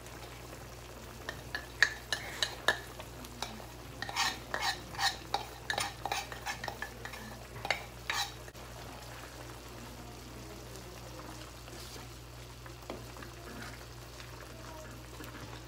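A quick run of knocks and taps as pounded tamarind flower buds are knocked out of a wooden mortar into a metal pan, stopping after about eight seconds. Under it and afterwards is the steady sizzle of the soup simmering in the pan, with a wooden spoon stirring near the end.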